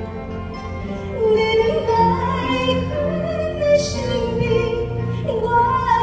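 A woman sings a slow song in a classical, operatic style over instrumental accompaniment. Her voice comes in about a second in, and her held notes waver with vibrato.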